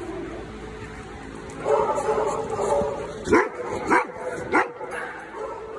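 A dog barking three times, each about two-thirds of a second apart, just past the middle.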